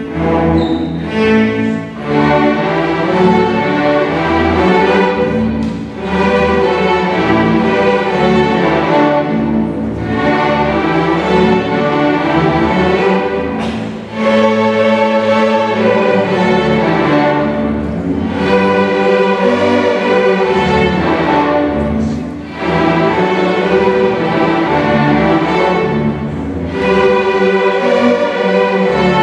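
A large beginner string orchestra of violins, violas, cellos and double basses playing a bowed passage together, in phrases with short breaks about every four seconds.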